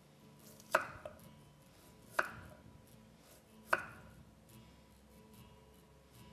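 Chef's knife slicing lengthwise through a raw carrot and striking a wooden cutting board: three sharp knocks about a second and a half apart, the first followed by a lighter tap.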